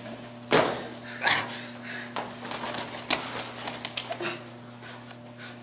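A person's whimpering yelps, with scuffling and knocks on a hard floor; the sharpest cries come about half a second, a second and a quarter, and three seconds in.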